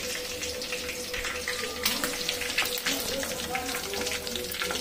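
Chicken deep-frying in hot oil in a kadai: steady sizzling and crackling, with a faint steady hum underneath and a sharper click about two seconds in.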